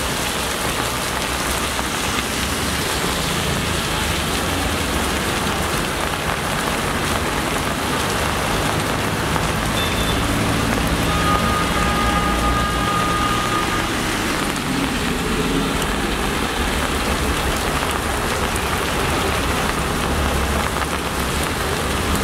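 Heavy rain pouring steadily onto a wet road, with the low rumble of passing traffic (auto-rickshaws, motorbikes and cars) driving through the water. A brief steady tone sounds about halfway through.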